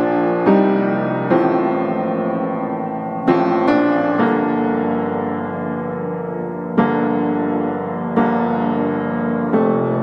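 Background piano music: chords struck every second or two, each left to ring and fade.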